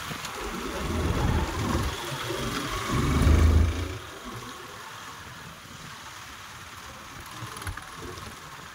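Motorcycle engine running, with wind rumbling on the microphone in irregular gusts that are loudest for the first four seconds, then settling to a steadier, quieter rush.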